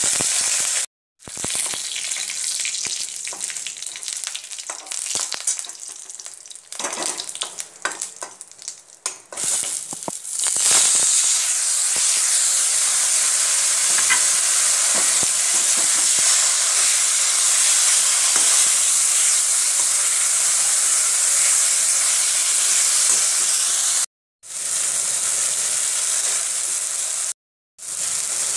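Frying in hot mustard oil in a kadai: first curry leaves and spices crackling and spitting unevenly, then, about ten seconds in, boiled brinjal pieces sizzling loudly and steadily as they are stirred with a metal spatula. The sound cuts out abruptly a few times.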